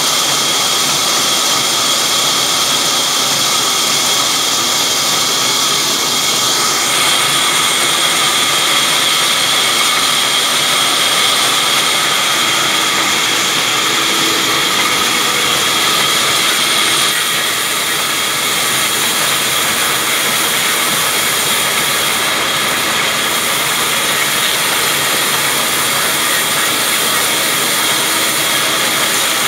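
Large vertical band saw cutting through a log: a steady, loud high whine from the running blade over the hiss of the cut, brightening about seven seconds in and easing slightly a little past halfway.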